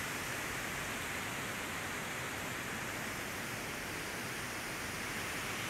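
River rapids rushing over rocks: a steady, even rush of white water.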